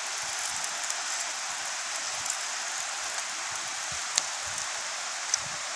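Steady rush of flowing water at a small river cascade, with a couple of short sharp clicks near the end.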